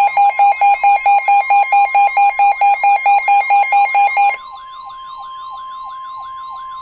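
Electronic emergency alert tones: a loud alarm beeping rapidly, about four to five pulses a second, over a steady high tone. About four seconds in the beeping stops, and the steady tone carries on, quieter, with a repeating falling warble over it.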